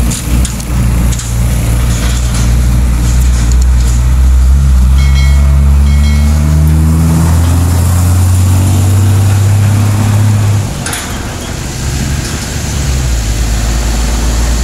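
Heavy diesel truck towing a trailer passing close by on an uphill hairpin, its engine running under load with a loud low drone that fades after about ten seconds. A short hiss follows about eleven seconds in.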